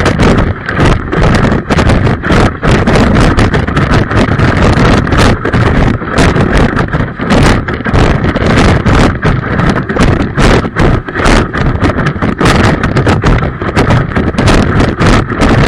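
Wind buffeting the camera microphone over a fast, irregular rattle of knocks, typical of a winter windsurf board skating over rough ice.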